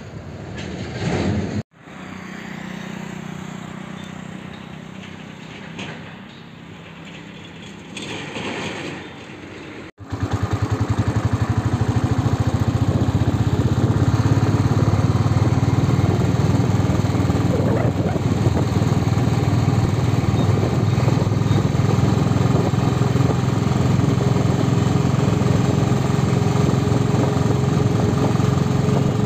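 Steady engine and road noise of a moving motor vehicle, loud and unbroken from about ten seconds in. Before that there is quieter traffic noise, split by two abrupt cuts.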